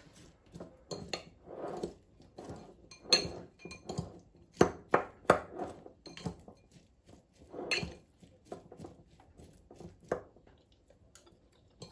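A metal fork tossing chopped salad in a ceramic bowl: irregular clinks and scrapes of the fork against the bowl, between softer rustling of the vegetables.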